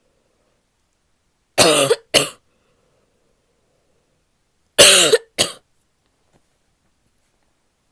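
A woman's barky coughing: two pairs of harsh coughs about three seconds apart, each a longer cough followed by a short one.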